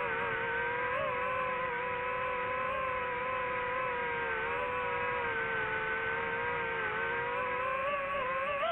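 The DJI FPV drone's motors and propellers whine steadily in flight, heard from the drone itself. The pitch wavers a little with throttle and rises near the end.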